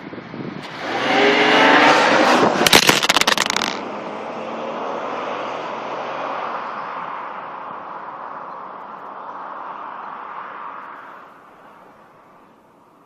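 1995 Pontiac Bonneville SE's 3800 Series II V6 with stock exhaust, rising in pitch as it revs about a second in. Then comes a second or so of clattering and scraping as the recording phone falls over. The engine sound carries on afterwards and slowly fades away.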